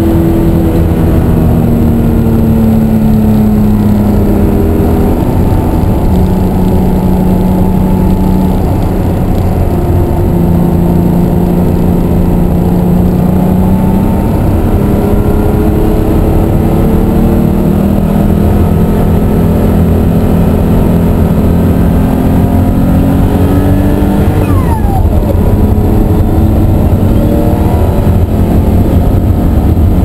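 Ruf CTR 'Yellow Bird' twin-turbo air-cooled flat-six under hard acceleration, heard from inside the cabin: the engine note climbs through the gears, dropping back at each upshift, then falls sharply near the end as the car slows.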